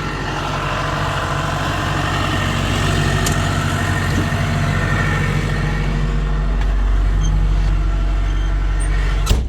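Self-propelled swather running steadily while cutting wheat: an engine drone with a strong low hum. A sharp click near the end, and then the noise drops away abruptly.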